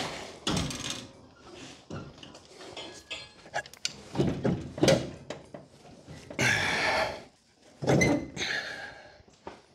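Scattered metal clanks and knocks, with some scraping and rustling, as a 360 Magnum V8 hanging from a shop crane's chain is shifted and worked down toward its motor mounts.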